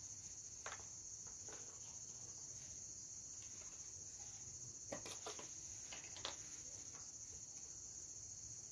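Steady, faint high-pitched chirring of crickets. There are a few faint clicks and taps, about a second in and twice more past the middle.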